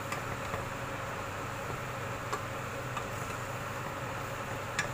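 Bok choy cooking in a wok with a little water and fish sauce: a steady hiss, with a few light clicks of a wooden spatula against the pan.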